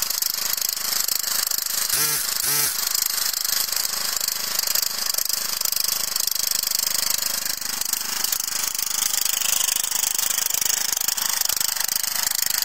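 Riding lawn mower's small engine running loud and steady, its rapid firing pulses clearly heard as the mower is driven over grass.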